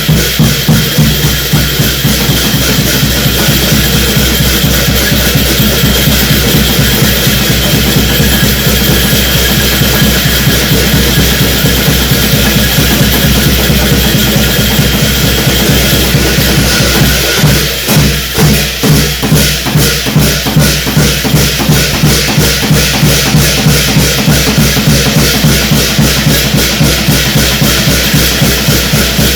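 Korean shamanic gut ritual music: drums and cymbals played loud in a fast, steady rhythm. About two-thirds of the way in, the separate strokes stand out more clearly.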